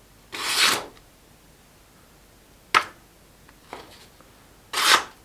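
A freshly sharpened kitchen knife slicing through a sheet of paper in a sharpness test: two short papery swishes, one near the start and one near the end, with a single sharp click between them.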